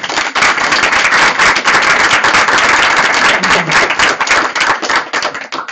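Audience applause: many people clapping at once, loud and dense, stopping abruptly near the end.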